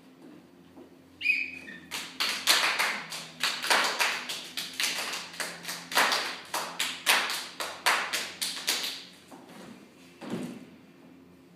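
A run of sharp hand claps and slaps, about three a second in an uneven rhythm for roughly seven seconds. A brief squeak comes just before it, and there is one last strike near the end.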